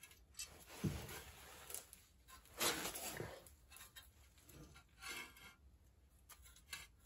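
Faint handling sounds of a new brake rotor being turned on the hub and its small retaining bolt fitted: light metal taps and scrapes from gloved hands, with a louder scraping rustle near three seconds in.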